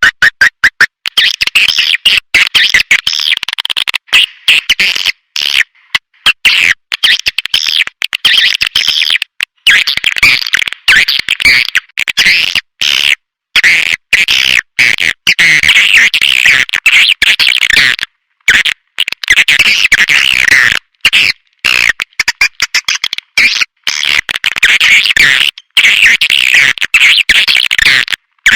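Swiftlet-calling lure recording: a dense chorus of swiftlet chirps and twitters, high-pitched, chopped by frequent brief drops to dead silence as in an edited loop.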